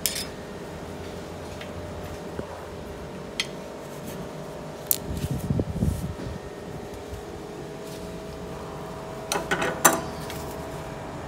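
Steady fan-like hum with a few light clicks and metallic clinks from parts and tools being handled, a low thud about halfway, and a quick cluster of clinks near the end.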